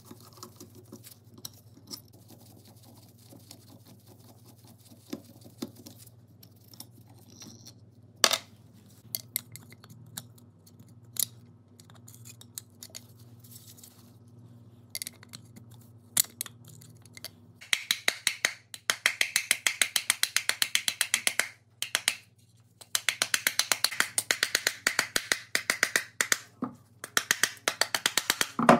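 Screwdriver clicking and scraping against the metal of a Makita drill's motor housing as the brush holder and field coil are pried loose: scattered sharp clicks in the first half, then two long runs of fast, even clicking.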